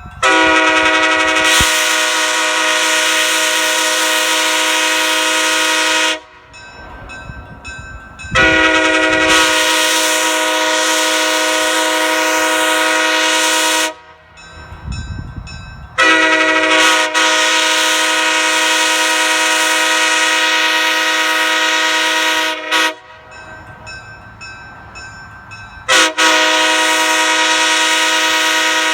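Nathan Airchime K5H five-chime locomotive air horn blowing one steady chord in four long blasts of several seconds each, with short pauses between; the last blast is still sounding at the end.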